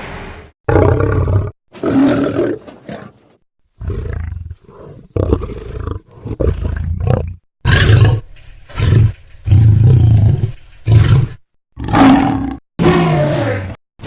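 Carcharodontosaurus roar sound effects: about a dozen short, separate roars and snarls, each half a second to a second long, with brief silences between them.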